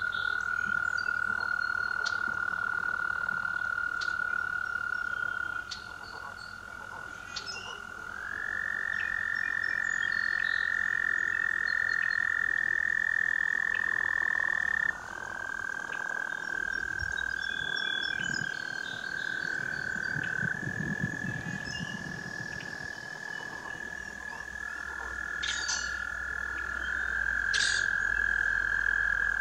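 Frogs trilling: several long, steady high-pitched trills, each held for several seconds, overlapping at slightly different pitches as one caller takes over from another. A few short clicks or chirps break in here and there.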